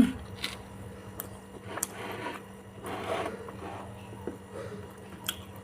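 A spoon clinking and scraping against a plate in a few sharp separate clicks, with eating noises between them. There is a short thump at the very start.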